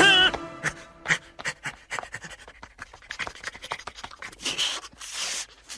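A man panting and breathing hard in short puffs, with soft irregular clicks and rustles as he presses and rubs.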